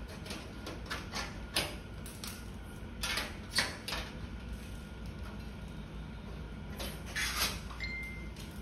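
Irregular clicks, clinks and scrapes of sheet-metal gas-stove parts and a screwdriver being picked up and set down on a concrete floor, the loudest clink about three and a half seconds in, over a steady low hum.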